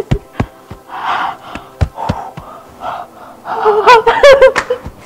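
A woman gasping and crying out with joy and relief at good news. Breathy gasps and several sharp smacks come in the first two seconds, then a run of high, wavering cries near the end.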